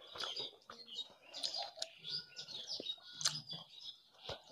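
Wet, sticky sounds of a bare hand mixing rice with fish curry, then lip smacks as a mouthful is eaten, with many short high chirps and clicks throughout.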